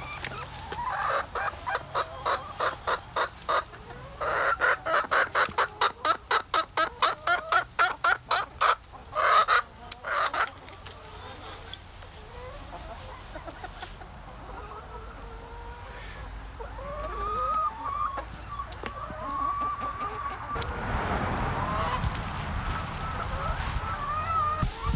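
Flock of hens clucking. One hen gives a long, rapid run of clucks, about four a second, ending in a few louder squawks about ten seconds in. Softer trilling calls follow, then a rustling noise near the end.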